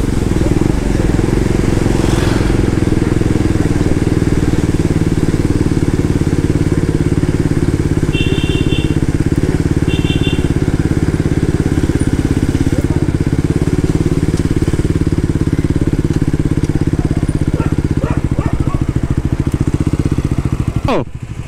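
KTM Duke motorcycle's single-cylinder engine running steadily while riding along, heard from the bike. Two short high beeps come about 8 and 10 seconds in, and the engine sound dips briefly near the end.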